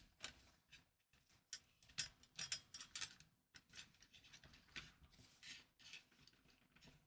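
Faint, irregular clicks, taps and rubbing from small metal and plastic parts being handled: a pin and a perforated metal strap bracket being fitted onto a car central-locking actuator.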